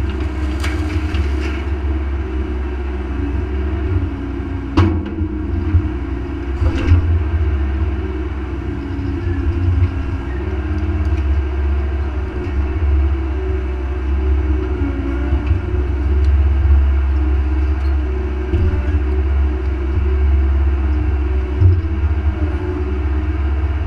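Mini excavator's diesel engine running steadily, its note wavering as the arm and bucket are worked. A few short knocks near the start and about five and seven seconds in.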